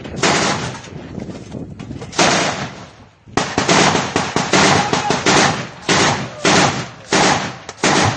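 Rifle shots: a single shot at the start, another about two seconds later, then a steady series of shots about two a second, each with a short echoing tail.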